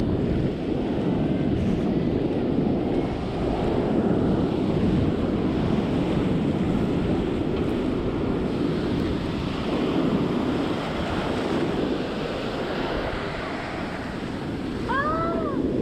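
Ocean surf washing and breaking on the beach, a steady rushing noise, with wind buffeting the microphone.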